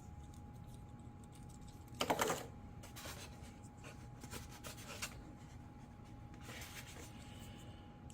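Small plastic RC-plane landing gear parts and packaging being handled, rubbing and rustling, with the loudest crinkle about two seconds in, over a faint steady hum.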